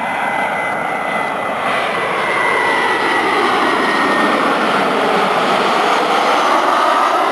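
Boeing 737-300 airliner's CFM56 turbofans flying low overhead on final approach. A thin engine whine falls slightly in pitch over the first few seconds, and the jet noise slowly grows louder toward the end.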